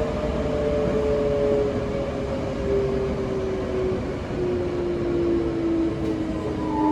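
Mitsubishi GTO VVVF inverter and traction motors of a Toei 5300 series train whining, with their tones falling steadily in pitch as the train slows under electric braking. Steady wheel and track rumble runs underneath.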